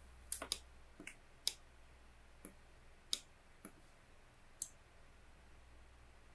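Computer mouse clicks and scroll-wheel clicks: about nine sharp single clicks scattered over the first five seconds, over a faint steady low hum.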